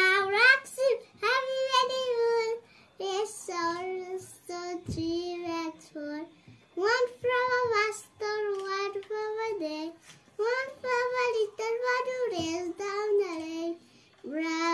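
A young boy singing unaccompanied, in short phrases of held notes with brief pauses between them.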